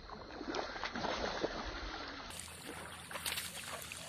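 Water splashing and sloshing in irregular bursts, with scattered sharp clicks and knocks.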